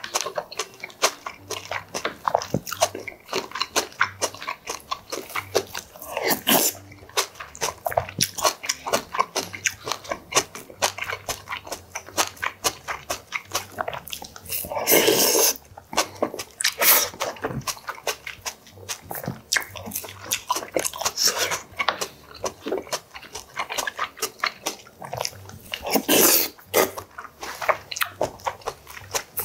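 Close-miked eating sounds of cockle bibimbap and beef-and-radish soup: wet chewing with many quick, irregular mouth clicks and smacks. There is a louder, longer slurp about halfway through.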